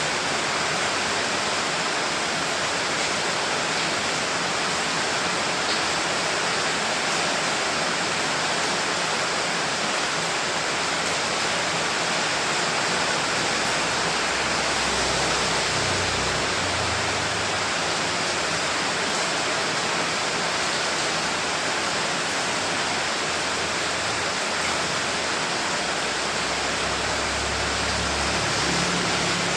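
Steady heavy rain, a dense even hiss with no single drops standing out. A low rumble comes up twice, around the middle and near the end.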